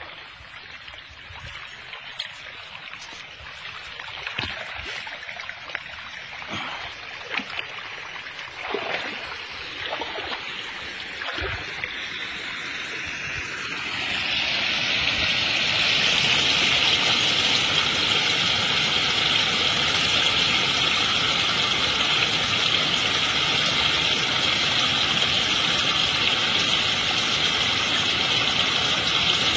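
Muddy rainwater running along a field trench, with scattered knocks, then from about halfway a loud, steady rushing as the runoff pours down into a groundwater recharge pipe.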